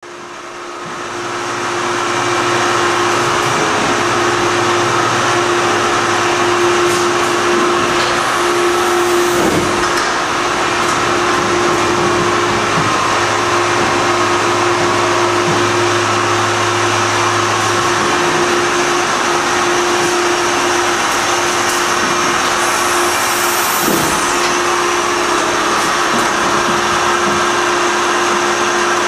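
Gnutti rotary transfer machine, a multi-station metal-cutting machine tool, running: a steady loud mechanical whir with a constant hum, fading in over the first couple of seconds. A lower drone drops out about two-thirds of the way through.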